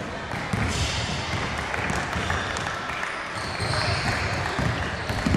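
Basketball dribbled on a hardwood gym floor, repeated bounces, with voices in the background.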